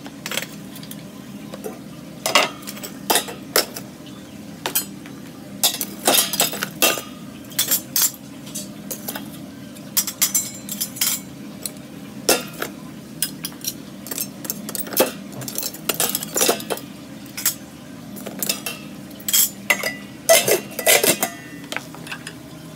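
Metal clanking and clattering as restaurant charcoal burner pots and grill rings are handled with tongs and set down, in many irregular sharp clanks over a steady low hum.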